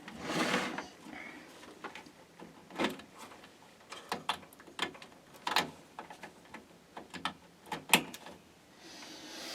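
Irregular light clicks, knocks and rustles of power-supply cables and connectors being handled and routed inside a PC case, with a short rustle near the start.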